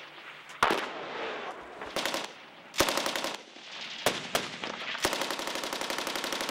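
Belt-fed general-purpose machine gun firing: a single shot, two short rapid bursts, a couple of single shots, then a long sustained burst from about five seconds in.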